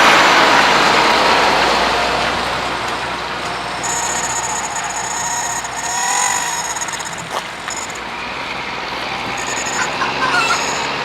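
V6 engine and exhaust of a Dodge Journey with rubber chickens fitted over the tailpipes, running while the vehicle drives. It is loudest at the start and eases off over the first few seconds, then runs more steadily.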